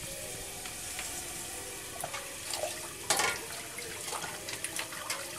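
Water splashing in a small steel pot on the floor, with sharp clinks of metal, the loudest about three seconds in, over a steady hiss.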